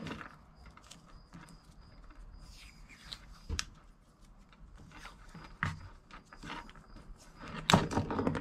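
Handling noises from electrical tape being wrapped and pressed around a socket on an extension: scattered light clicks and rustles, with a louder burst of clicking and rustling near the end.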